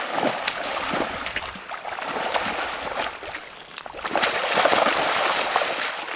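Hooked coho salmon thrashing and splashing at the surface of shallow river water, with a rapid patter of sharp splashes. The splashing grows loudest about four seconds in.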